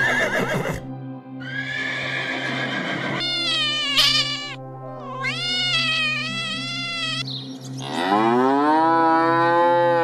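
Farm animal calls laid over background music with a steady pulsing beat: a horse whinnying in the first seconds, a cat meowing around the middle, and a cow's long moo near the end that starts low and rises in pitch.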